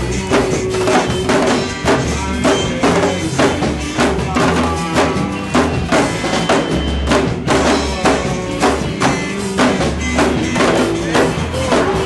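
Percussion-led music playing with a steady, fast beat over a bass line.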